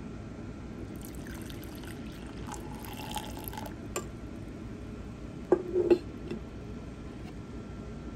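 Coffee poured from a glass carafe into a ceramic mug for a few seconds, the stream splashing and filling. About halfway through, a click and then a brief knocking clatter, the loudest sound, come from the carafe or the creamer bottle being handled on the table.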